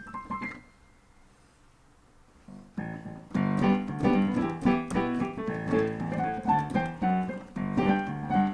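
Piano keyboard playing. A few notes sound right at the start, then after a short quiet gap it sets into a steady run of chords with a bass line from about three seconds in.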